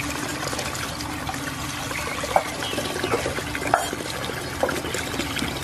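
A stream of running water pouring over leafy greens held in the hand and splashing into a full basin of water, steady, with a couple of sharper splashes.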